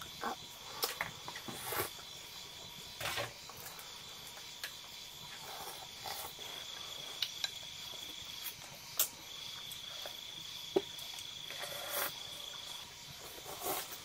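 Crickets trilling in a thin, high, steady tone that breaks off and resumes in long stretches. Scattered light clicks of chopsticks against porcelain rice bowls sound over it.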